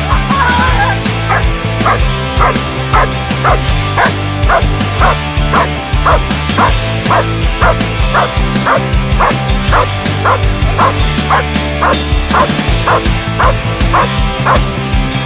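Young German Shepherd barking over and over, several barks a second, up at a helper's bite sleeve during protection training, over loud background rock music.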